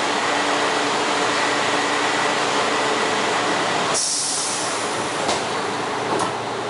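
Bombardier rubber-tyred Wenhu line metro train running, a steady rumble with a faint high whine. About four seconds in, a sudden high hiss rises for about a second, followed by two short clicks.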